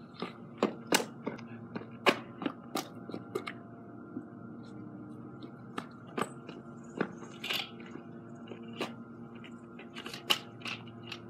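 Irregular sharp clicks and crunchy taps of footsteps on a concrete driveway and of gear being handled, over a faint steady hum.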